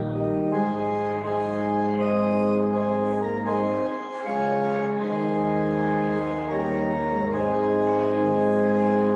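Organ playing slow, sustained chords that change every second or two, with a brief lull about four seconds in.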